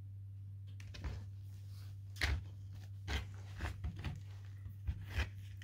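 Teething rough collie puppy gnawing on a hide bone: irregular crunching clicks that start about a second in.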